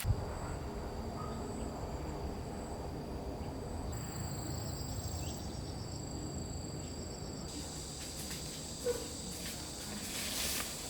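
Insects, crickets by their sound, calling in a steady high-pitched trill of two unbroken tones over a low, steady rumble.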